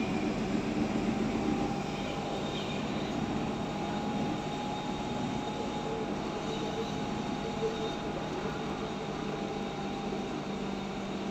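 Cabin noise inside a moving MAN Lion's City CNG city bus: the gas engine and tyres make a steady rumble and road hiss, with a faint steady whine over it.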